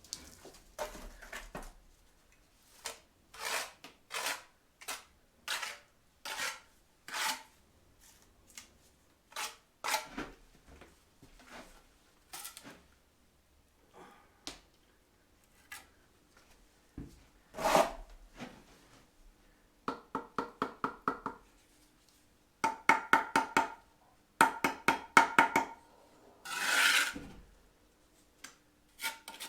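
A hand tool scraping in repeated strokes, slow single strokes about once a second at first, then quick runs of rapid rasping strokes around the middle and later, with a faint ringing tone.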